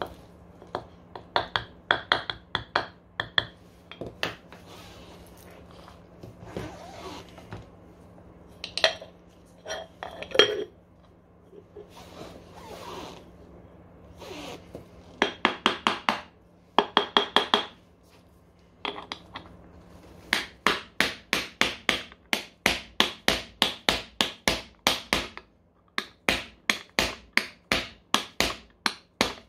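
Metal hammer strikes with a ringing clink, in clusters and then long runs of quick, even taps about three a second. This is the sound of hammering on the bearings of an electric scooter's rear hub motor to drive them out or seat them.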